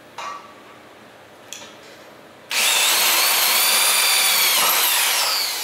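A corded electric drill drives a 2½-inch self-drilling screw through galvanized steel C-channel. After a couple of small clicks, the drill starts about halfway in with a loud, steady, high whine, then falls in pitch as it slows near the end.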